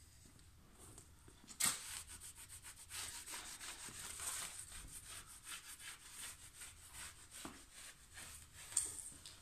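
A cloth is rubbed hard over a laminate sheet to press it onto glued chipboard and bond it, in a long run of quick scraping strokes. A sharp tap comes about a second and a half in, and another near the end.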